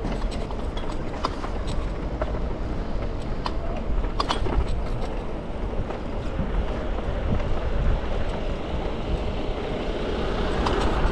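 Wind rumble and road noise from a moving bicycle, with city traffic around it and a few short rattling clicks. The noise swells louder near the end.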